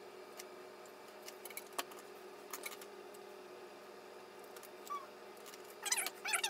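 Faint clicks and handling sounds of a flat iron being clamped and drawn through hair, over a steady low hum. Near the end there is a brief louder cluster of higher, wavering sounds.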